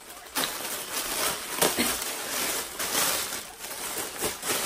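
Clear plastic packaging bag crinkling and rustling in irregular crackles as a faux fur jacket is pulled out of it.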